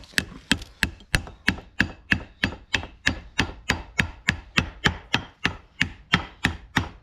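A hammer tapping a new grease seal into a feeder wagon's cast wheel hub, in steady rapid taps of about three a second, seating the seal so it holds the greased inner wheel bearing in place.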